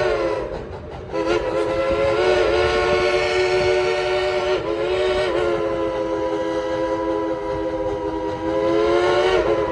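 A 1938 Baldwin steam locomotive's chime whistle blowing a multi-note chord in long blasts. A short gap comes about a second in, a brief break with a pitch sag about halfway, and the whistle sounds on until near the end.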